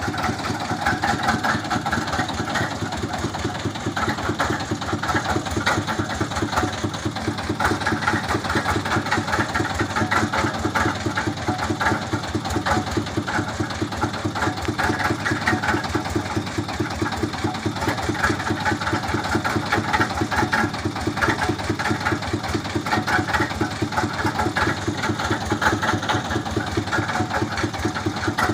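Engine of a water-well boring rig running steadily with a fast, even beat.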